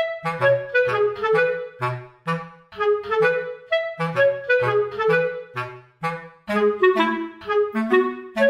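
Outro background music: a bouncy instrumental tune of short melody notes over a bass line, about two to three notes a second.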